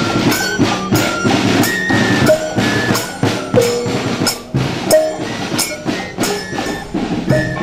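Javanese palace guard marching band playing: drums beat a steady march rhythm of about three strokes a second while fifes play a melody of short held high notes.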